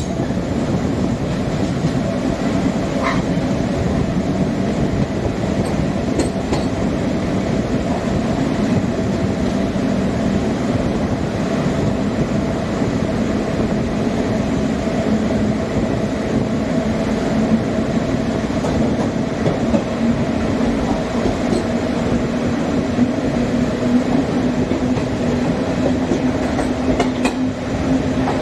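Passenger express train running along the track: a steady rail rumble with a droning hum that creeps slightly higher in pitch over the second half, and a few scattered clicks from the wheels on the rails.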